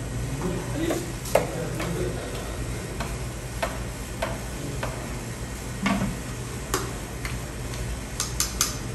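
A long-handled metal ladle knocking and scraping against a large metal ful pot and metal serving bowls as fava beans are ladled out, in scattered clinks about once or twice a second, over a steady low hum.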